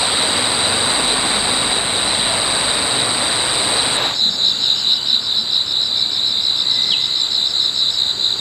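A steady rushing noise, then an abrupt cut about four seconds in to insects chirping in an even pulse of about six a second over a high, steady insect drone.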